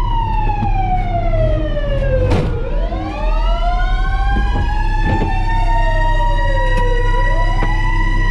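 Fire truck siren wailing, sliding slowly down in pitch and back up, with a second, steadier siren tone joining it a few seconds in. A low engine rumble runs underneath, and there is one sharp click a couple of seconds in.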